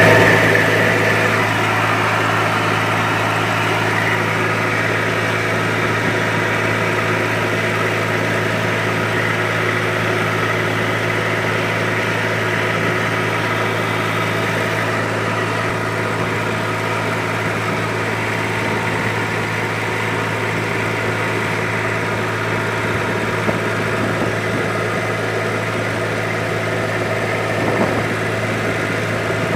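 Tractor engine running steadily at idle, holding an even pitch with no revving.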